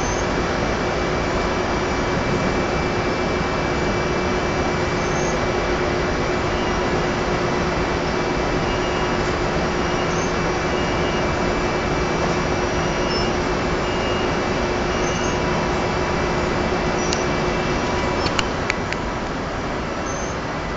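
Steady machinery noise with a constant low hum, and a few sharp clicks near the end, after which the noise drops a little.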